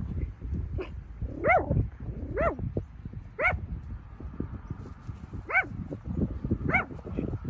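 Small dogs yapping in rough play: five short high-pitched yaps, each rising and falling in pitch, with a two-second pause before the last two. A low rumbling noise lies underneath.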